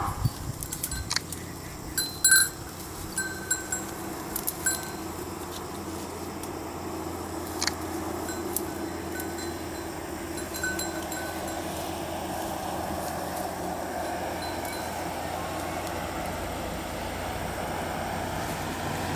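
Small metal bell clinking in short, irregular jingles, most often in the first few seconds and only now and then afterwards. A vehicle's running noise slowly grows louder underneath toward the end.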